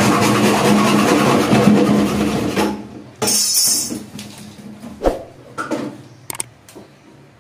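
A hand-held hacksaw blade sawing through a PVC pipe, a dense scraping rasp that stops about two and a half seconds in as the cut is finished. After a short high hiss, a few light knocks and clicks follow as the cut pipe is handled.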